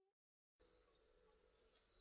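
Near silence: a brief cut to complete silence, then very faint steady background hiss with a low hum.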